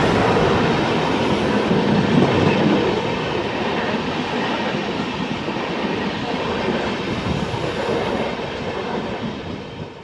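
Indian Railways ICF passenger coach running at speed, heard on board: a steady rumble and rattle of the wheels on the track, with some clickety-clack. It eases off near the end.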